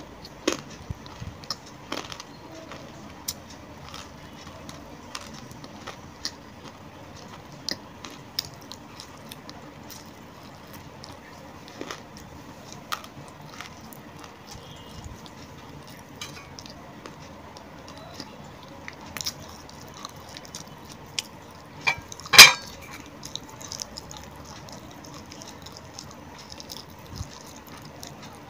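A person biting and chewing a hard white lump close to the microphone: scattered sharp crunches and mouth clicks, with one loud crunch about three-quarters of the way through.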